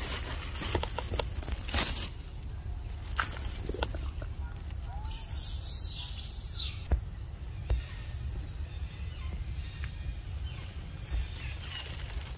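Rustling of leaves and undergrowth with scattered small snaps and knocks, over a steady low rumble and a faint, steady high hum. A louder rustle comes about five seconds in and lasts about two seconds.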